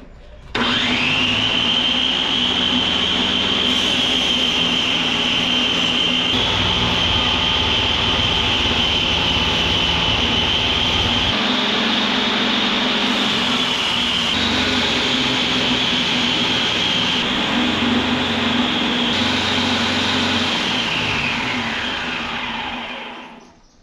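Belt grinder running. Its motor spins up about half a second in, runs steadily with a high whine, then winds down near the end.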